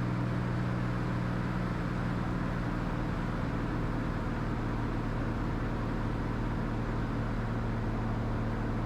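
Steady cabin drone of a Cirrus SR22T's turbocharged six-cylinder engine and propeller on final approach, an unchanging low hum with even background noise.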